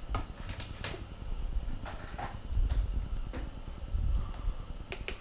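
Scattered light clicks, knocks and rustles of hands handling a power cable and small items on a wooden desk, over a low rumble.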